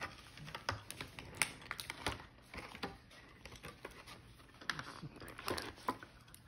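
Irregular light clicks and taps of small plastic toy pieces being handled as a Barbie doll is dressed and fitted with her accessories, with a denser run about a second and a half in and another near the end.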